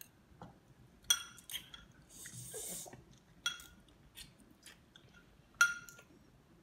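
Metal fork clinking against a ceramic noodle bowl several times, with short ringing taps, the loudest about a second in and near the end. A short slurp of udon noodles comes about two seconds in.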